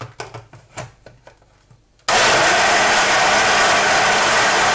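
A few light knocks as the cup is fitted onto a personal blender's base, then about two seconds in the blender's motor starts suddenly and runs steadily, blending chopped vegetables in the cup.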